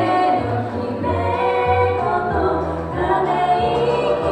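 Two women singing a song together over instrumental accompaniment with a steady bass line, performed live on a small stage.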